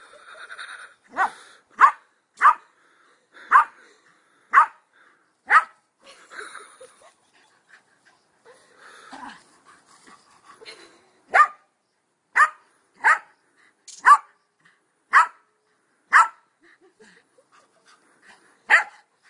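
Small black-and-white dog barking in play at a rabbit: short sharp barks about once a second, in two runs with a pause of a few seconds between them.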